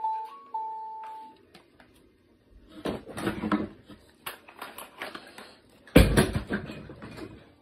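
An electronic baby toy's simple beeping tune ends about a second in. Then come handling noises and clatter, with a loud knock about six seconds in.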